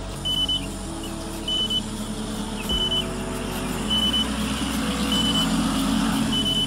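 Short high electronic warning beep from the SJRC F7 drone's controller, repeating six times about every 1.2 s: a low-battery alarm, with the drone battery down to 19%. Underneath is a steady rushing background noise that swells in the second half.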